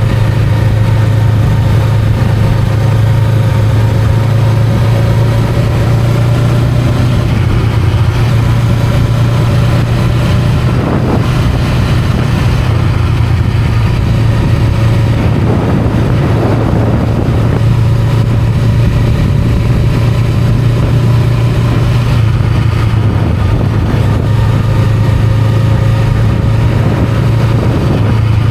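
Honda Rebel 500's parallel-twin engine running at a steady cruise, a constant drone with the revs barely changing. A few short bursts of noise come through around the middle.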